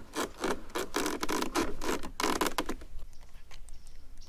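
Close handling noise: a rapid run of short scratching, rubbing scrapes for about the first three seconds, then quieter.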